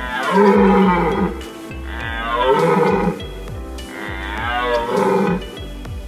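A deer calling three times, each call a drawn-out roar of about a second that falls in pitch. Light background music plays under it.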